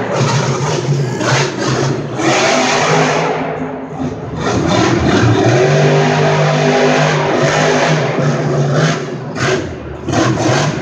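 Monster truck's supercharged V8 engine, loud and echoing in the arena, revving hard and easing off several times during a freestyle run, with dips in power around four seconds in and again near the end.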